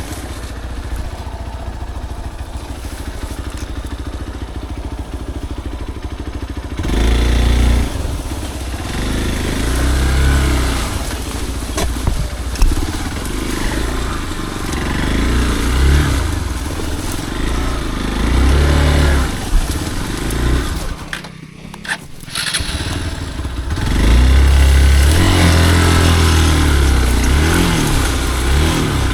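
Motorcycle engine riding an off-road trail, revving up and down as the throttle is worked. It runs steady and low at first, dips briefly about three-quarters of the way through, then runs louder near the end.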